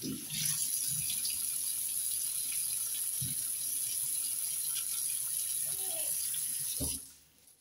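Kitchen tap running in a steady stream into a stainless steel sink, splashing over hands and a sponge being rinsed under it. The tap is shut off near the end and the flow stops.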